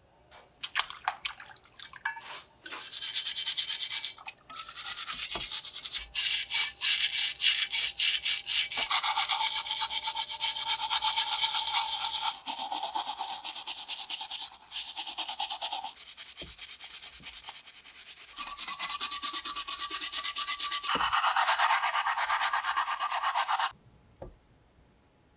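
Small plastic scrub brush scrubbing wet metal lantern parts over soapy water: rapid back-and-forth strokes, with a short break about four seconds in and a quieter stretch past the middle, stopping shortly before the end.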